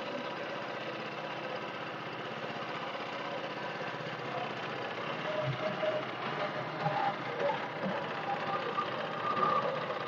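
Small boat engine running steadily, pushing the fishing canoe along, a little louder in the second half.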